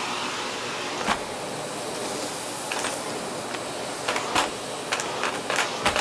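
Miele S6 canister vacuum running steadily on its normal suction setting, its plain floor head (no turbo brush or power head) passing over carpet. Sharp clicks come now and then as shredded paper is sucked up.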